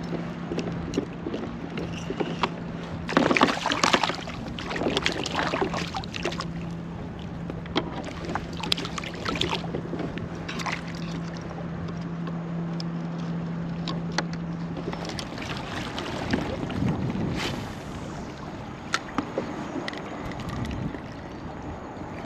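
Handling noise aboard a sit-on-top fishing kayak, with water lapping on the hull and wind: scattered knocks and rustles, the loudest a cluster about three to four seconds in. A steady low hum runs under it and stops about fifteen seconds in.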